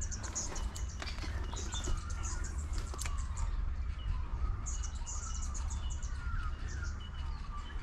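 Small birds chirping in several bursts of rapid high trills, with short repeated high whistled notes between them, over a steady low rumble.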